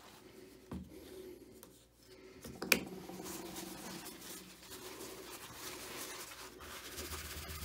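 Paper towel rubbing Brasso over a 3D-printed Bronzefill plaque, a faint scratchy wiping sound as the bronze-filled surface is polished. A single sharp knock comes about three seconds in, with a smaller tap earlier.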